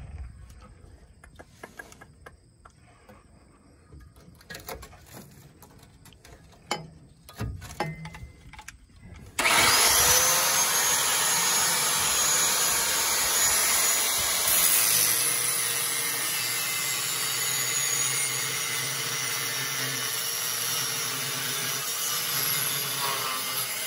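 Angle grinder with a cutting disc starts suddenly about nine and a half seconds in and runs steadily, cutting through the rusted steel exhaust pipe beside the catalytic converter. Before that there are only a few light knocks and clatters.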